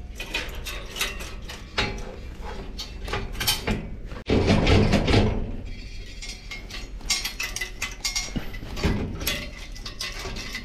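Metal espresso-machine parts and hand tools clinking and knocking on a workbench, in a string of irregular clicks, with a louder noisy burst about four seconds in that lasts about a second.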